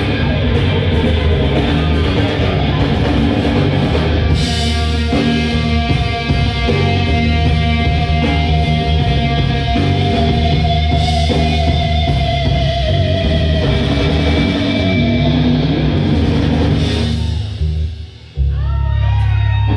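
Live rock band playing an instrumental passage: electric guitar lead over bass guitar and drum kit, with a long held note in the middle. Near the end the full band drops out suddenly, leaving deep bass notes and sliding, swooping guitar pitches.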